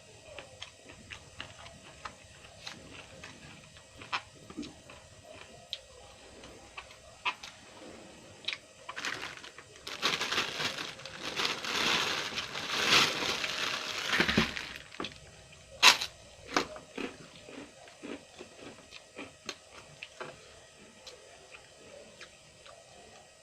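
A person eating close to the microphone: scattered wet clicks and crunches of chewing, with a longer, louder stretch of crunching about ten seconds in lasting some four seconds, and a sharp click a little after it.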